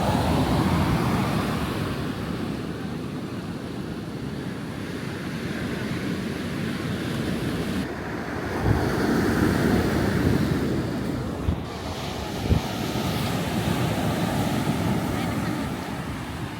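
Ocean surf with wind buffeting the microphone, the noise swelling and easing in gusts. A few brief thumps about nine, eleven and twelve seconds in.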